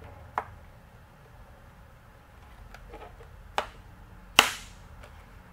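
Plastic of a Dyson DC17 cyclone housing giving three sharp clicks as it is forced and twisted against its internal snap clips; the last, a little past four seconds in, is the loudest.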